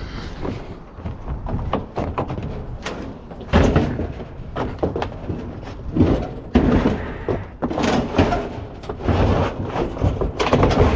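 Repeated metal bangs, thuds and scraping as an air-conditioning unit on a hand truck is loaded into a truck.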